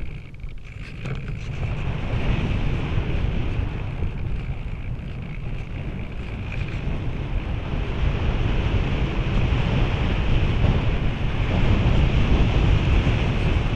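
Rushing air buffeting the microphone of a camera mounted on a radio-controlled glider in flight. It dies down briefly about a second in, then builds again and stays strong.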